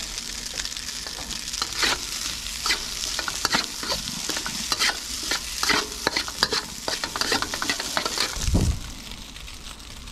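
Rice frying and sizzling in a wok while a spatula scrapes and clacks against the pan in quick, irregular strokes. A dull low thump comes near the end, and after it the sizzling and stirring are quieter.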